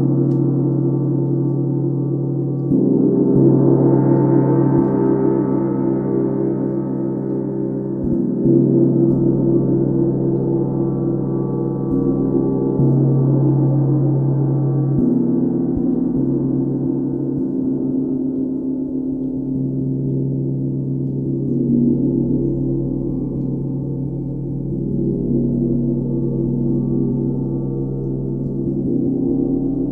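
A 32-inch UFIP brass symphonic tam-tam rings on without a break. Fresh mallet strokes every few seconds build its sustained, many-toned wash up again.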